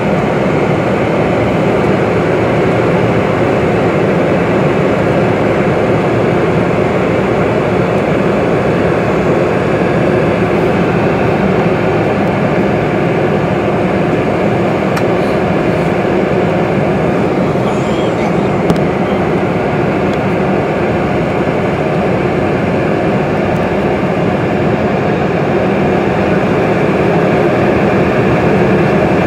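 Steady cabin noise of a Boeing 747-400 taxiing: its jet engines running at low taxi power and the airliner rolling along the taxiway, heard from inside the passenger cabin.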